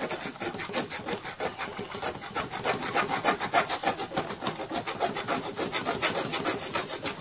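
Hand saw (segueta) cutting through a small part freehand, in quick, even back-and-forth strokes.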